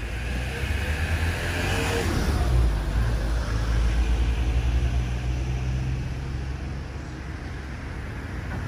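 A car passes close by, its sound falling in pitch as it goes past about two seconds in, over a steady low rumble of road traffic.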